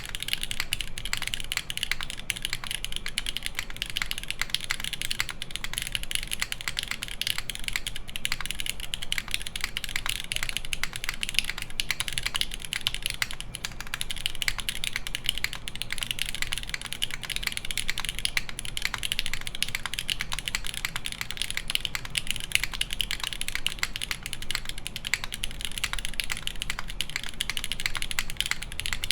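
Continuous fast typing on a mechanical keyboard with lubed, broken-in Cherry MX Black linear switches in an aluminum plate and GMK keycaps: a dense, steady stream of key clacks.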